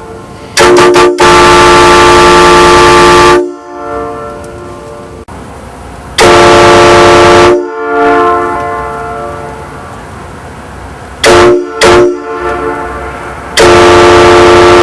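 Multi-chime air train horn blown in a series of blasts: two short blasts and a long one, a single blast, then two short blasts and another long one, each a steady chord of several tones. It is very loud, and each blast echoes and fades away.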